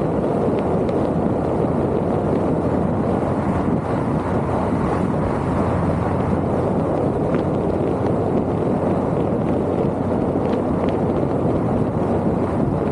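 Steady rumble and hiss of a vehicle being driven, road and wind noise holding an even level, with a few faint clicks.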